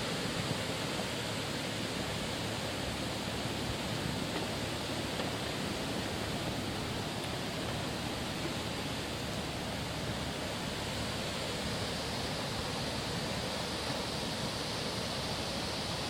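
Steady rush of a stream's running water, with no change in level.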